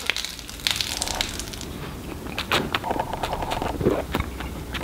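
A man drinking from a glass beer bottle: scattered gulps and swallows with small clicks.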